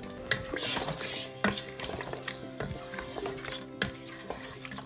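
Wooden spoon stirring a thick potato and meat curry in the metal inner pot of an electric pressure cooker, with irregular taps and knocks of the spoon against the pot.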